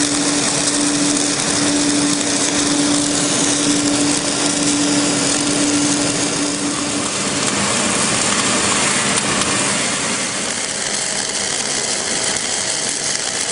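Arc welding on the beveled edge of a steel pipe: a steady, dense hiss and crackle, over a machine hum that drops to a lower pitch about seven seconds in.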